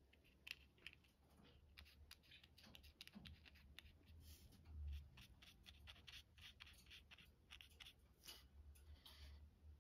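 Faint scratching and tapping of a paintbrush dabbing paint onto paper, many short strokes, over a low steady hum.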